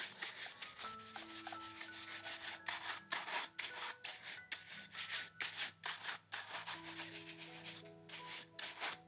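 Bristle shoe brush rubbing fast back and forth over a shell cordovan leather shoe, several quick strokes a second. It is the brushing-off after conditioning, done to raise the leather's shine.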